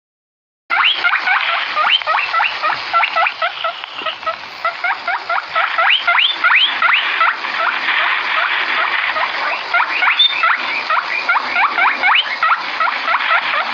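Many small animals squeaking together: a dense, overlapping run of short rising squeaks, several a second, starting abruptly just under a second in.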